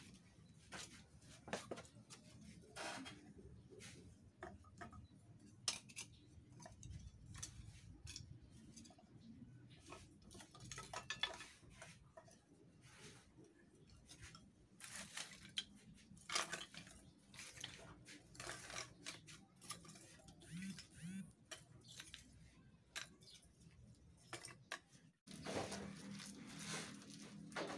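Faint, irregular clicks and light knocks of wood and kindling being handled while a wood-burning stove is being lit.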